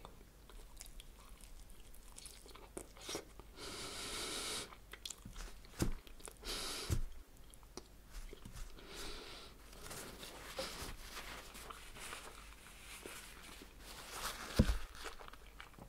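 Close-miked chewing, biting and crunching of chicken and vegetable spring rolls, with one sharp thump near the end.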